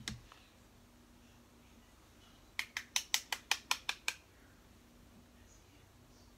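A quick run of about ten sharp taps or clicks, some six a second, lasting about a second and a half.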